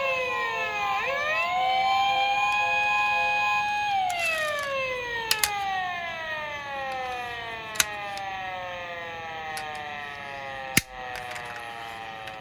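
Toy police car's siren sounding: a tone that dips and rises again, holds steady, then glides slowly down in pitch from about four seconds in. A few sharp clicks cut in along the way.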